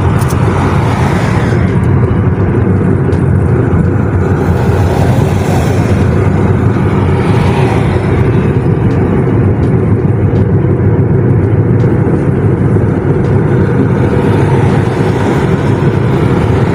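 Steady, loud rumble of road and wind noise inside a car moving at highway speed.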